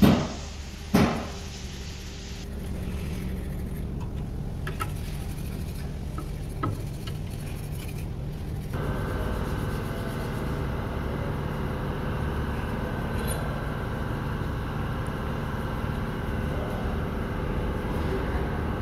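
Two sharp clanks about a second apart as the old transmission-pan gasket is thrown into a red metal parts bin, then a steady low machinery hum that gets fuller about nine seconds in.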